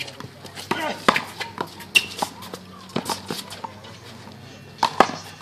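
Rubber handball smacked and bouncing off hands, wall and pavement in a one-wall handball game: a series of sharp smacks, irregularly spaced, with a quick pair near the end. Players' voices are heard between the smacks.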